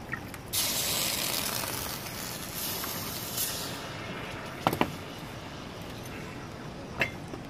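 Hot, freshly cast lead hissing and sizzling against a wet mould. The hiss starts suddenly about half a second in and fades away over about three seconds. Two sharp clicks come later.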